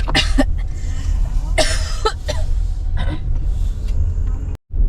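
Steady low road rumble inside a moving car, with three short bursts of a person's voice, cough-like. The sound cuts out briefly near the end.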